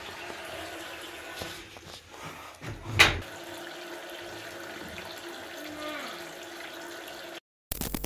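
Water running and gurgling in a bathroom floor drain under a steady hum, with one loud knock about three seconds in. The sound cuts off suddenly near the end.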